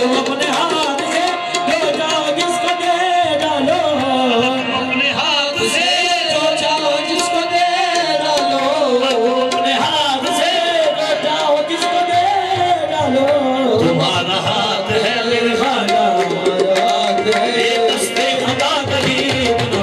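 Qawwali music: tabla drumming and a harmonium's held reed notes accompanying the qawwals' sung vocals.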